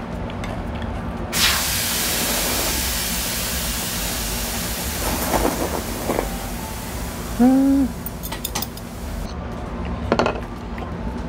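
A steady rushing hiss starts about a second and a half in and cuts off suddenly near the end. About seven and a half seconds in there is a brief hummed 'mm', and soup is sipped from a bowl a little before it.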